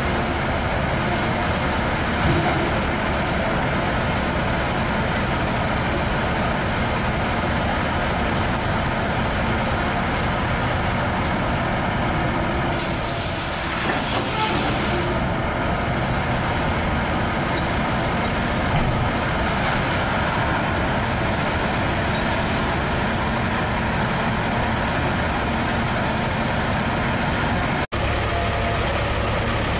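Heavy diesel engines of an excavator and a dump truck running steadily. A hiss of air lasts about two seconds midway, and the sound drops out for an instant near the end.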